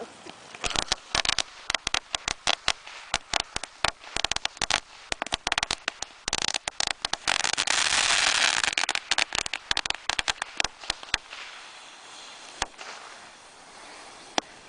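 A string of firecrackers going off in a rapid, irregular series of sharp bangs for about ten seconds. Around the middle they come so fast that they run together into a continuous crackle, and a couple of lone cracks follow near the end.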